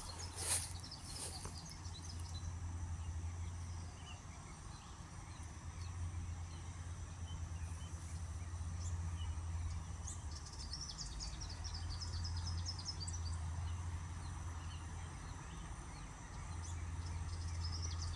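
Low, steady rumble of a distant earth-moving machine's engine, swelling and fading in slow waves, with small birds chirping in rapid trills, most clearly from about ten to thirteen seconds in.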